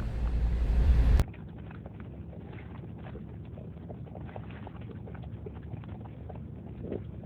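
Low road rumble inside a moving car that cuts off abruptly about a second in, followed by faint scattered clicks and light taps over a soft hiss.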